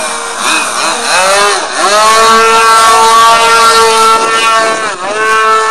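Radio-controlled model airplane's motor, its pitch swooping up and down several times in the first two seconds. It then holds a steady high note, with a brief dip about five seconds in.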